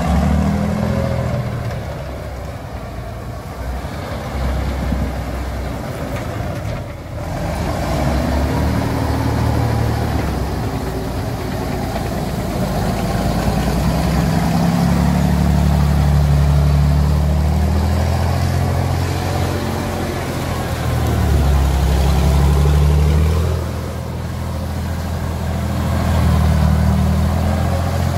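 Nashorn (Sd.Kfz. 164) tank destroyer's engine running as the tracked vehicle drives, its note rising and falling several times as the driver works the throttle.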